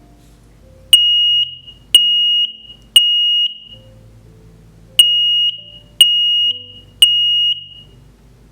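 X-Sense SC07-W combination smoke and carbon monoxide alarm sounding its test alarm: loud, high-pitched beeps, each about half a second, in two groups of three with a pause between. This three-beep rhythm is the standard smoke-alarm evacuation pattern.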